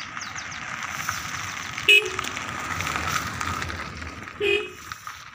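A passing vehicle's rushing noise swells and fades, with two short horn toots about two and a half seconds apart.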